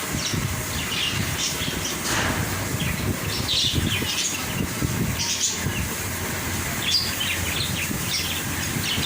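Small caged birds chirping, a busy run of short high calls overlapping one another, over a steady low rumble.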